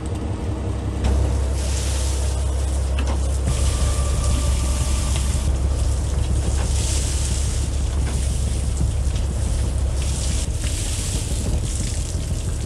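Fishing boat's engine running with a steady low rumble, with wind and water noise over it.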